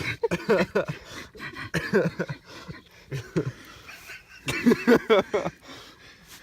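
Domestic cat yowling in protest in several short bursts while its fur is being clipped. The loudest bursts come about two-thirds of the way through.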